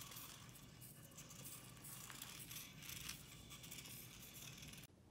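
Faint crackling and ticking of a tiny 1:64 scale RC car driving across a tabletop, its micro gears and small wheels rattling, which stops suddenly near the end.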